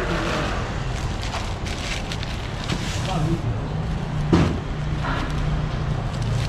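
A large knife paring the rind off a whole pineapple in short cuts, with a sharp chop about four seconds in, over a steady low hum and background chatter.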